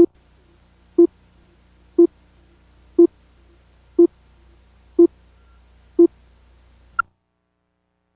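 A series of seven short, identical electronic beeps, one each second, over a faint low hum.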